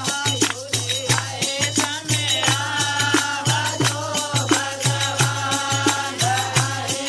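Devotional bhajan music: a hand drum beats a steady rhythm of about two strokes a second under constant jingling hand percussion, and voices sing long held lines, strongest from about two and a half seconds in.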